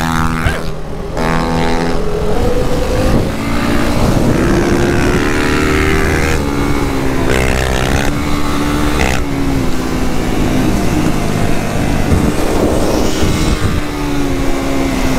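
2019 Yamaha YFZ450 sport quad's engine running hard. Its pitch climbs and then drops several times as it goes up through the gears, with wind noise over it.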